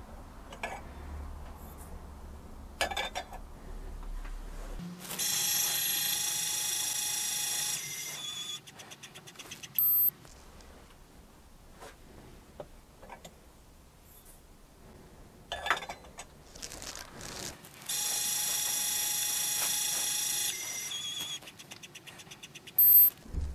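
Lyman Gen6 electronic powder dispenser throwing two charges. Each cycle opens with a click, then the dispensing motor runs with a steady whine for about three seconds, slows to a rapid ticking trickle, and ends with a short beep as the charge is reached.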